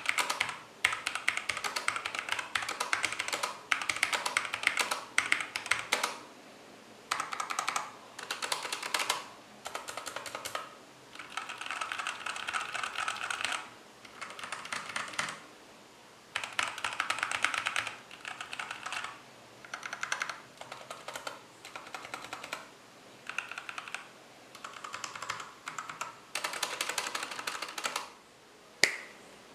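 Typing on a mechanical keyboard with Halo True tactile switches: quick runs of key clicks and clacks lasting a second or more each, broken by short pauses, with one louder single keystroke near the end.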